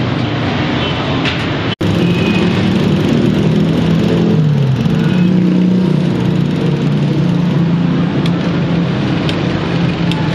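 A motor vehicle engine running steadily, its pitch wavering and dipping, then rising again around the middle. The sound cuts out for an instant about two seconds in.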